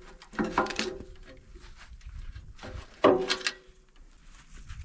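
Steel ripper shanks and pins on a box blade clanking and rattling as they are pulled and shifted by hand to raise the rippers. There are two bursts of metal knocks with a slight ring, the louder about three seconds in.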